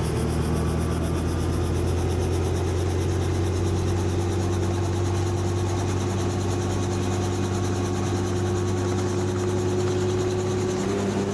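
Helicopter engine and rotor running steadily: a constant low drone with fast, even rotor beats.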